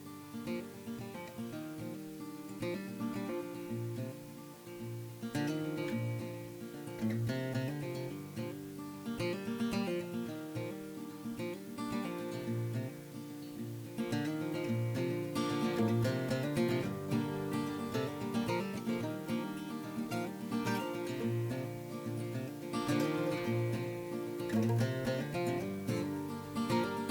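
Background music: plucked, strummed acoustic guitar, a little louder about halfway through.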